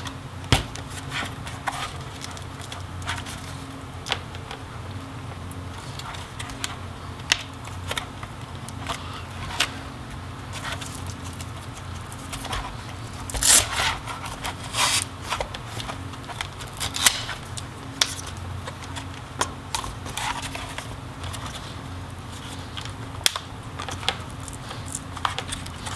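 Hands wiggling and prying the plastic front faceplate of an Oculus Quest 1 headset: irregular plastic clicks, creaks and scrapes, with a louder cluster of crackling about halfway through. The faceplate is still held by a catch on a screw tab after its screws are out.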